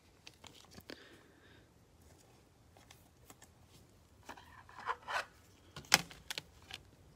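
Faint handling noises of a trading card in gloved hands: soft rustles and scrapes past the middle, then a sharp click about six seconds in, followed by a few light ticks.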